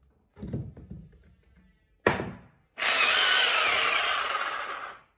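Corded 220 V rotary hammer drill run free in plain drilling mode with the hammer action off. A few light handling knocks come first. About two seconds in there is a brief trigger blip, then the motor runs steadily for about two seconds and winds down.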